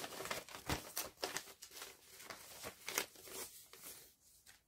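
Thin clear plastic wrapping and a strip of small plastic bead sachets crinkling and rustling as they are handled, a run of quick light crackles that dies away near the end.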